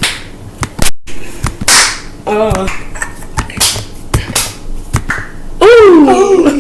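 A scatter of short knocks and clicks, with a brief high voice sound about two seconds in and a louder, longer wavering squeal with a falling pitch near the end, from children doing trick shots.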